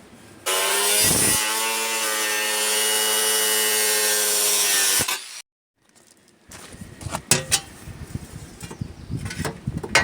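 A power cutting tool cutting metal, running with a steady whine and rasp for about four and a half seconds and stopping abruptly. After a short gap, scattered knocks and clanks of metal pieces being handled.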